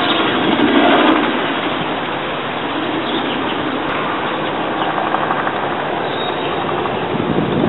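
Helicopter flying overhead: a steady rush of rotor and engine noise, a little louder in the first second.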